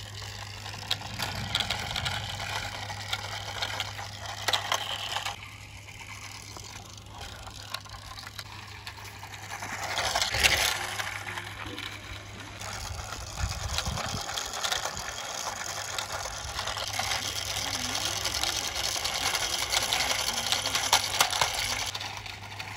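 Metal toy city bus pushed by hand along a rough concrete wall, its wheels rolling and scraping on the gritty surface in a few long pushes with a quieter pause in between.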